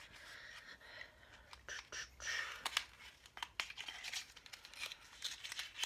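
Faint crinkling and rustling of packaging being handled, broken by many small sharp clicks and taps.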